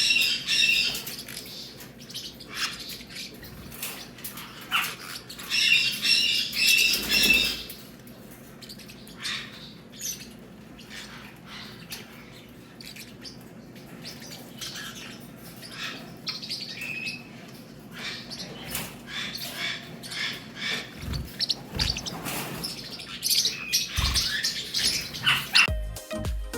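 Pet parrots chirping in bouts of rapid, high chirps, loudest at the start and again about six to seven seconds in.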